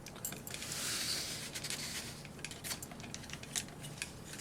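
Small clicks and taps of plastic and die-cast toy parts being handled, with a soft rubbing sound about a second in.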